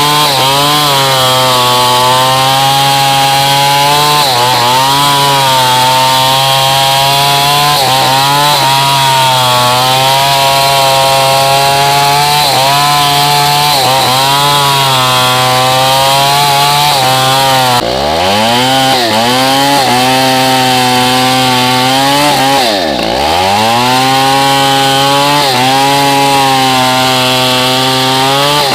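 Stihl 070 two-stroke chainsaw running at high revs through hardwood, its engine pitch sagging under load and picking up again every few seconds. Twice, about 18 and 23 seconds in, the revs drop sharply and climb back, and right at the end they begin to fall.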